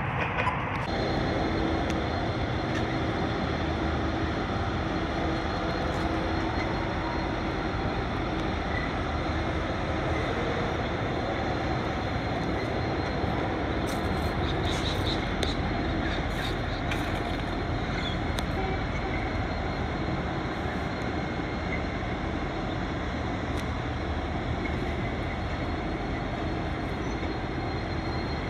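V/Line N class diesel-electric locomotive passing with its train: a steady drone of engine and wheels, with a held hum through the first half. A cluster of high metallic clicks and squeals comes around halfway.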